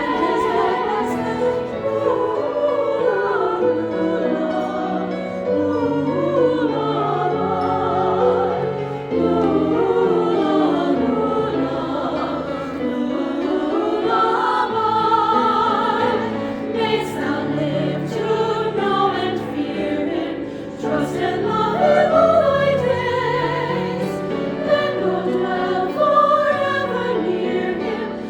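A choir singing in several parts, with sustained sung lines over held low notes.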